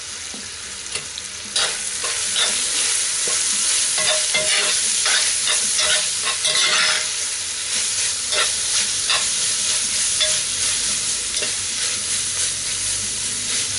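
Meat, onions and spices sizzling in a cast iron pan, with the scrapes and clicks of a utensil stirring against the iron. The sizzle grows louder about a second and a half in.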